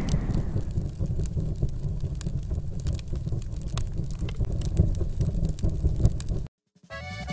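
Low rumble with scattered crackles, the fading tail of a logo-reveal sound effect, cutting off abruptly about six and a half seconds in. After a short silence, music starts near the end.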